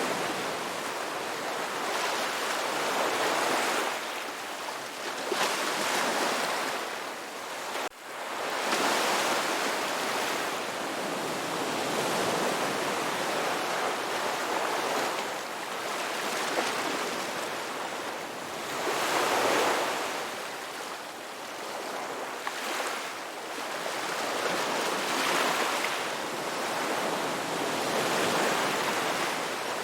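Ocean waves breaking on a beach: the surf swells and falls back every few seconds, with a brief sudden dip in level about eight seconds in.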